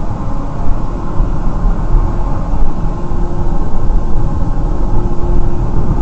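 Road noise of a moving car as picked up inside the cabin by a dash cam: a steady low rumble of tyres and engine with a faint steady hum running through it.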